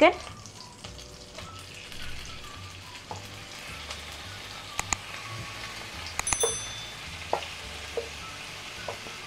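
Raw chicken pieces sizzling in hot melted butter in a nonstick wok as they are tipped in, a steady frying hiss with a few light clicks in the second half.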